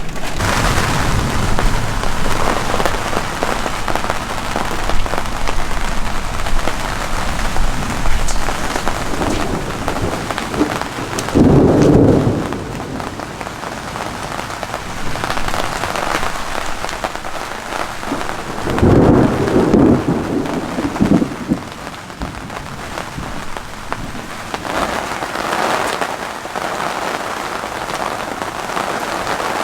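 Heavy rain falling steadily in a thunderstorm, with two loud rolls of thunder: a short one about twelve seconds in and a longer one about nineteen to twenty-one seconds in.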